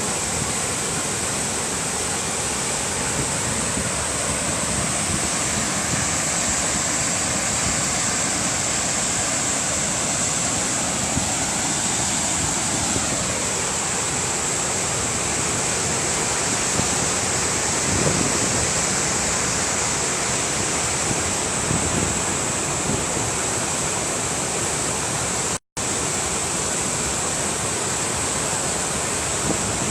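Waterfall rushing steadily, with a very brief dropout to silence about three-quarters of the way through.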